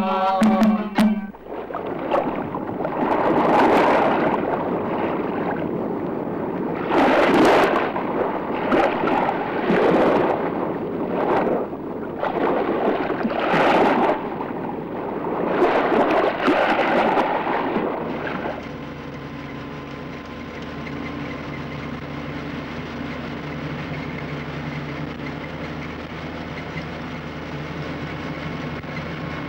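Sea waves breaking on a beach, a rush of surf that swells and falls about every three seconds. About eighteen seconds in it gives way to the steady drone of a vehicle's engine and road noise while driving.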